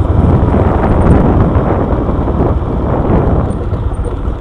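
Wind buffeting the microphone, a loud, steady rumble that covers everything else.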